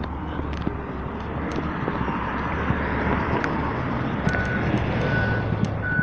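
School bus engine and road noise running steadily. About four seconds in, a repeated high beep starts, roughly once a second.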